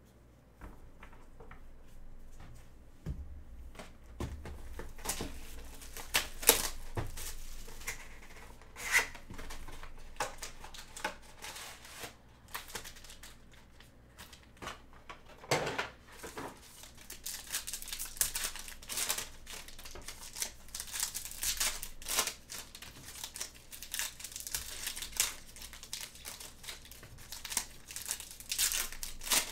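Baseball card packs being torn open and their wrappers crinkled by hands in nitrile gloves, after a cardboard card box is opened. Scattered taps and rustles at first, then rapid, dense crinkling through the second half.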